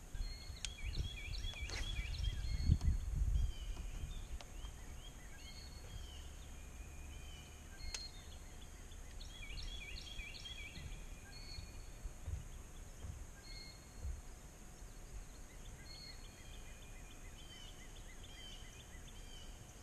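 Several songbirds chirping in short repeated phrases over a steady outdoor hiss. Low rumbles and a few knocks come in the first few seconds.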